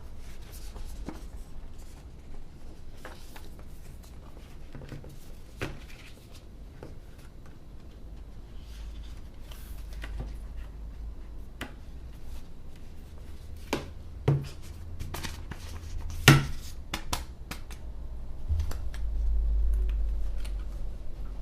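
Hands handling the packaging and contents of an iPad Pro box: scattered light clicks, taps and rustles of cardboard and plastic, with one sharp click about three-quarters of the way through.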